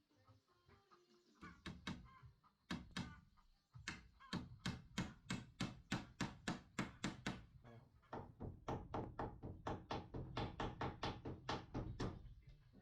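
Rapid hammer blows on wood, about four a second, with a short break midway.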